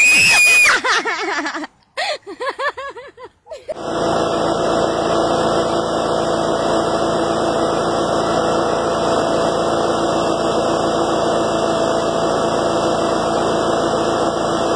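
A toad held in the hand gives a long, loud, unbroken trill that holds steady for about eleven seconds. Before it, a young child lets out a brief high-pitched squeal.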